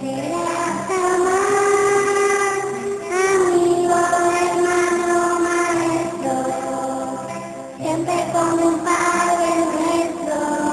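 Background music: a slow melody in long held notes over lower sustained accompanying notes, with no words sung.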